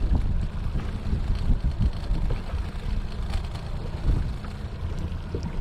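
Wind buffeting the microphone in uneven gusts as a low rumble, with a loose shirt flapping close by.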